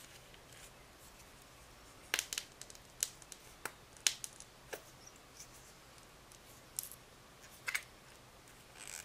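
Scattered small, sharp plastic clicks and crackles from a small glitter glue tube being handled and squeezed over slime, louder around two and four seconds in.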